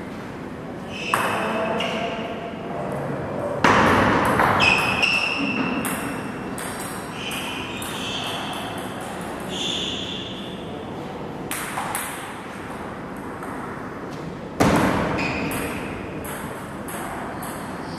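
Table tennis ball clicking in a string of short hits and bounces, many followed by a brief high ringing note, with two louder sounds about four seconds in and near the end.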